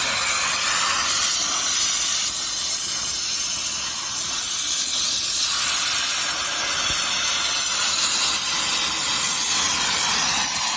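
A high-pressure steam car washer's spray gun blasting steam at a car's lower body to knock off ice: a steady, loud hiss.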